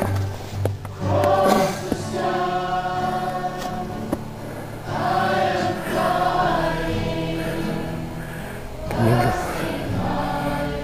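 Background choral music: a choir of voices singing held notes over a steady low drone.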